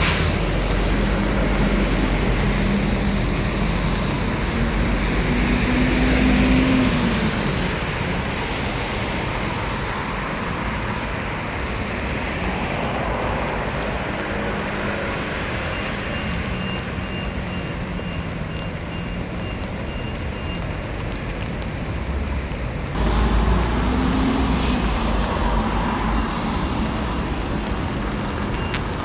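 City road traffic on a rain-wet street: cars and buses running past, a steady hiss of tyres with a low engine hum. It gets suddenly louder about three-quarters of the way through.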